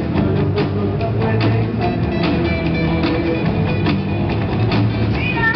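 Live rock band playing an instrumental passage: electric guitars over a drum kit with steady drum hits, played through PA speakers.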